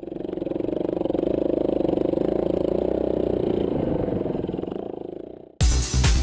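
Motorcycle engine running with a rapid pulsing note, swelling in and then fading away. Near the end it is cut off by loud electronic music with a heavy beat.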